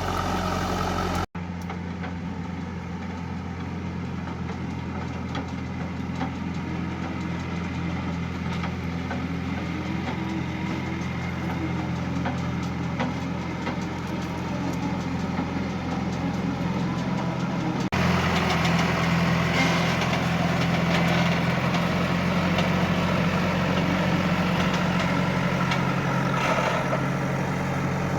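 JCB 3DX backhoe loader's diesel engine running steadily. The sound drops out for an instant about a second in, and gets louder and brighter from about two-thirds of the way through.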